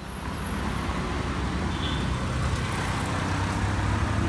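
Road traffic: a steady low engine rumble with tyre noise, getting louder over the first second.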